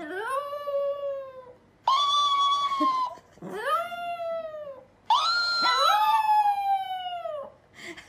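Dog howling: four long howls, each rising then falling in pitch.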